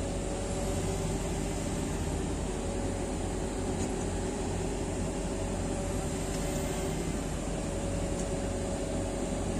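Excavator's diesel engine running steadily at a constant speed, with a faint steady whine over the engine drone.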